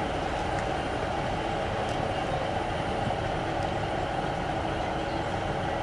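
Diesel multiple unit's engines idling steadily while the train stands at the platform.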